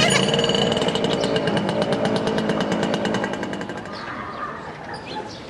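A small engine chugging with a rapid, even beat, fading away over about four seconds; birds chirp faintly near the end.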